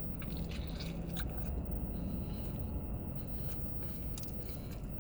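A person biting and chewing a sandwich close to the microphone, with scattered soft mouth clicks and smacks over a steady low rumble.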